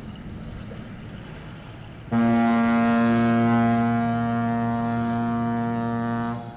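A ship's horn sounds one long, steady blast lasting about four seconds, starting about two seconds in and cutting off near the end, over low wind noise.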